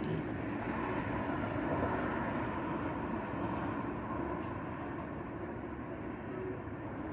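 A steady rumbling noise with no clear tone or separate strokes, holding about the same level throughout.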